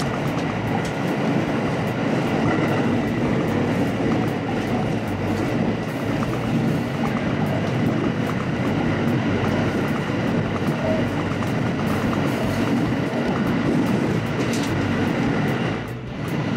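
Electric train running at speed, heard from inside the front car: a steady rumble of wheels on rails with a rapid patter of fine clicks.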